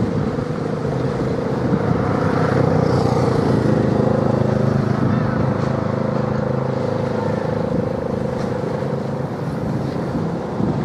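An engine running with a steady hum, swelling over the first few seconds and easing off toward the end.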